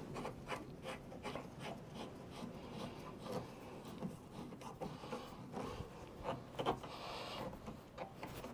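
Faint, irregular rubbing and small clicks of hand work on a threaded 1-inch PVC fitting: Teflon tape being wrapped on and the fitting screwed by hand into a plastic threaded filter-head inlet. A brief hissy rub comes about seven seconds in.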